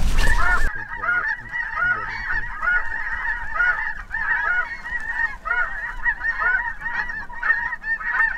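Dense chorus of snow goose calls: many short, arching honks overlapping, several a second, without a break. Wind rumble on the microphone drops out under a second in.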